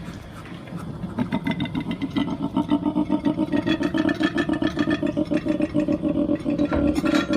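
An animal's call: a rapid, rhythmic pulsing grunt, getting louder about a second in and carrying on steadily.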